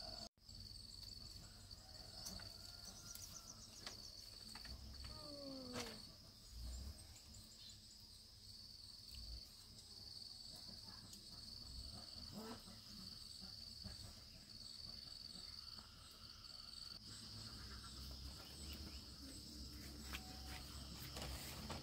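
Faint, high-pitched insect trilling, steady in pitch, in long stretches broken by short gaps, with a few soft knocks now and then.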